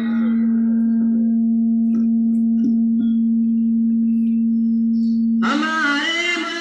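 A steady, nearly pure held tone sounds unchanged for about five seconds, then cuts off as singing of a patriotic song comes back in near the end.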